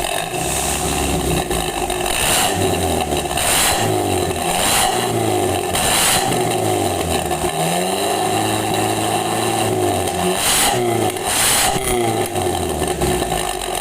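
Toyota Kijang Grand engine revved up and down repeatedly through a newly fitted Suos aftermarket 'ngorok' (growling) racing exhaust.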